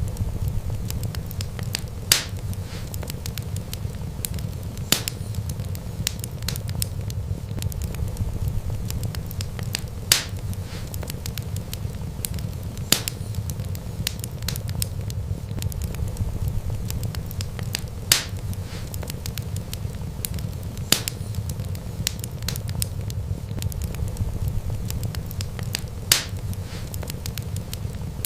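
Wood fire crackling: a steady low rumble of burning with many small ticks and a sharp pop every few seconds.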